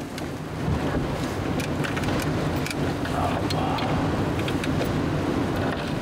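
Strong wind rushing and buffeting, growing louder about a second in as the wooden window of a hunting tower is opened, with scattered clicks and knocks from the frame being handled.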